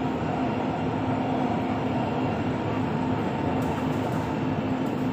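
Dubai Metro train running at speed, heard from inside the carriage: a steady rolling rumble with a constant low hum.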